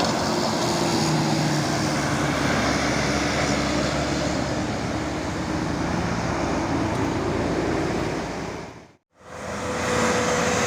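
Tour bus passing with its engine working on the climb, over tyre and road noise; the engine note sinks slowly. About nine seconds in the sound drops out abruptly for a moment, then the traffic noise returns.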